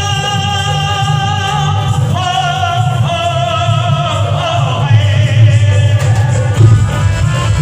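Music with a singer holding long, wavering notes over a steady low accompaniment.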